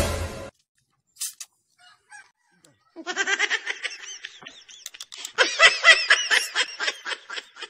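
A short loud burst at the very start, then from about three seconds in a chicken clucking and cackling in quick runs of calls, loudest near the end.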